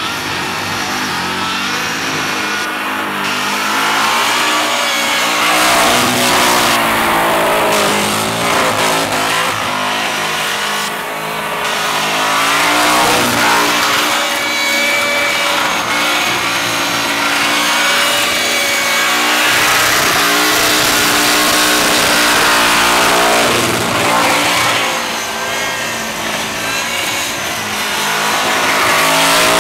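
A burnout car's engine held at high revs, its pitch rising and falling as the throttle is worked, over the steady hiss and squeal of the tyres spinning in place.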